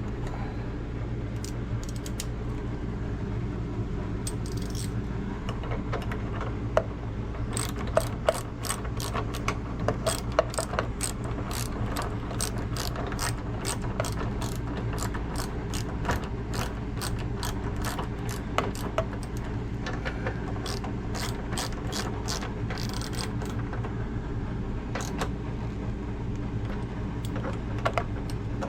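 Hand socket ratchet clicking in quick runs as the refrigerator door's hinge screws are driven in, over a steady low hum.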